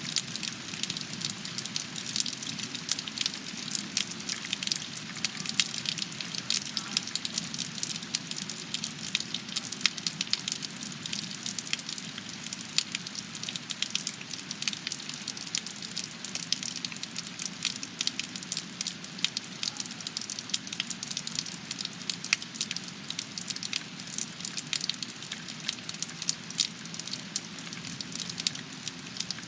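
Steady rain, its drops making a dense, even crackle of close ticks over a low steady hum, with no thunder.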